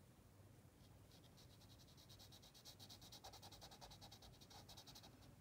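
Faint scratching of a felt-tip marker on paper, in quick short strokes as a small area is coloured in.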